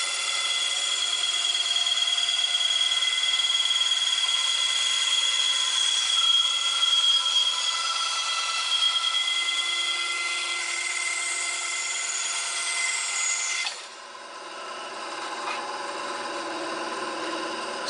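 A bandsaw cutting a small wooden block, with a steady high whine over the sawing noise. About 14 seconds in the cut ends and the saw runs on, quieter.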